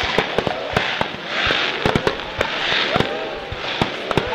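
Daytime fireworks: a rapid, irregular barrage of sharp bangs, several a second, with short bursts of crackling hiss between them.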